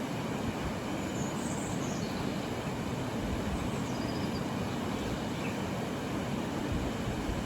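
Steady flowing river water, an even low noise with no breaks. A few faint high chirps come about a second and a half in and again around four seconds.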